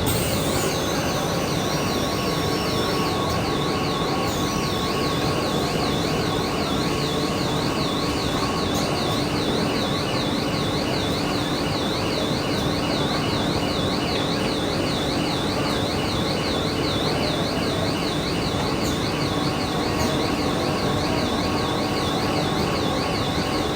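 Stretch film production line running with a steady machine drone and a few steady hum tones. Over it sounds a high electronic warning tone that warbles up and down about three times a second. Two short falling squeals come near the start.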